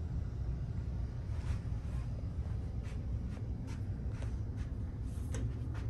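Steady low hum of a small cabin's room tone, with faint rustles and soft taps from the handheld camera being carried.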